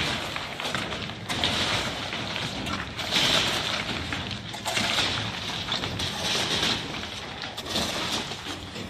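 Demolition rubble being cleared: a steady scraping, rustling noise with a few scattered knocks.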